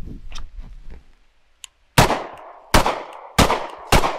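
A handgun firing four shots about two-thirds of a second apart, starting about two seconds in, each with a short ringing echo.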